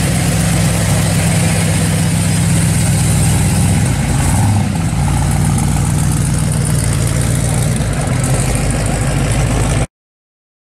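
1969 Chevrolet Chevelle SS V8 rolling slowly past at low revs, its exhaust running steadily with a brief swell about halfway through. The sound cuts off suddenly near the end.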